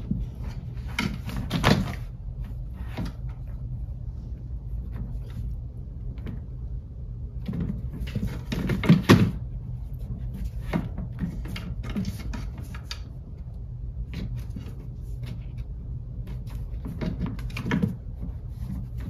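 A cat pouncing on and batting a toy mouse on a wood-laminate floor: scattered taps, scuffs and knocks against the floor and a wooden stand, with louder bumps about two seconds in, about nine seconds in and near the end, over a steady low hum.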